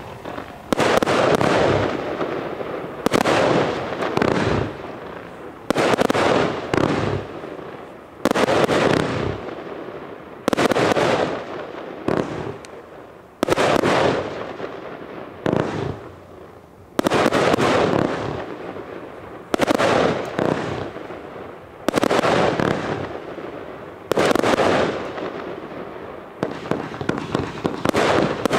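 Vulcan 'Da Nang' firework cake firing shot after shot, each a sharp bang followed by a fading hiss, roughly one every two seconds. Near the end comes a quicker run of small pops.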